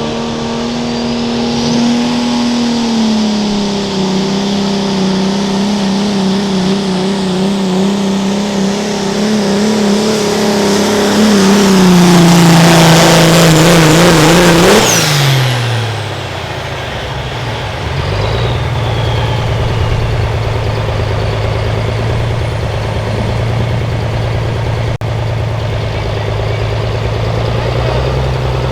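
Turbocharged diesel pickup engine at full throttle dragging a pulling sled. Its pitch sags in steps as the load builds, and it is loudest just before the revs fall away about fifteen seconds in with a dropping turbo whistle. The engine then runs steady at a low idle.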